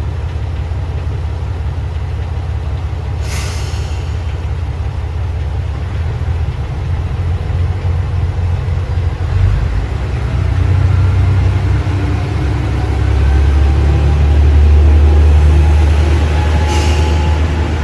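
Diesel railcar engine running with a deep drone that grows louder and rises in pitch in the second half as it pulls away, with two short hisses of air, one about three seconds in and one near the end.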